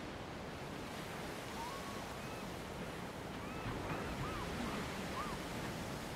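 Sea waves washing against a rock shore, a steady surf noise. In the middle a few faint, short, arching calls sound over it.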